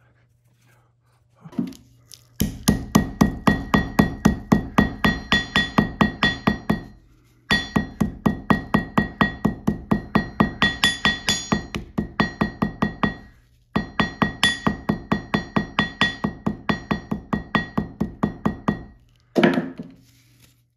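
Ball peen hammer pounding a paint brush's bristles against a steel anvil, breaking out hardened dried paint: rapid ringing strikes, about four a second, in three long runs with short pauses between, and a single strike near the end.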